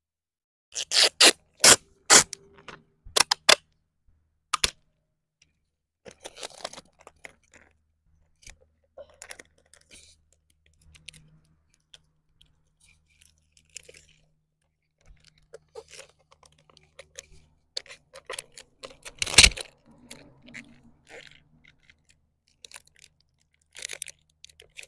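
Hard plastic clicks, scrapes and rattles as a toy remote-control stunt car is handled and an action figure is pressed onto it: a quick run of sharp clicks in the first few seconds, faint fiddling noises after, and one loud snap near the middle.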